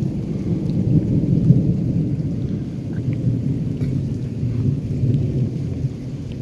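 Rolling thunder from a nearby lightning storm: a long, low, continuous rumble that eases off near the end.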